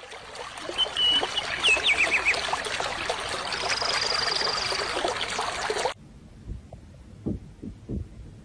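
Water trickling, with small birds chirping and a brief trill over it. About six seconds in, it cuts off abruptly to a quiet room with a few soft knocks.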